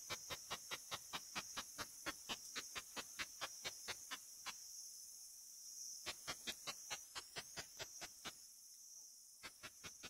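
Ishizuchi katydid's ultrasonic song, made audible through a bat detector: runs of sharp clicks at about four or five a second, broken by two short pauses, over a steady high hiss.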